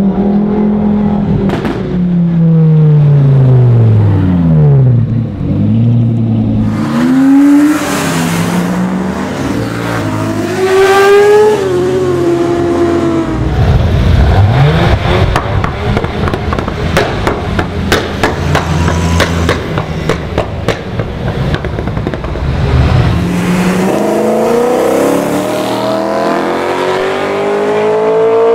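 Performance cars accelerating and revving past one after another, their engine notes rising and falling, with a long run of sharp exhaust crackles midway. Near the end a BMW M3's V8 pulls away with a steadily rising note.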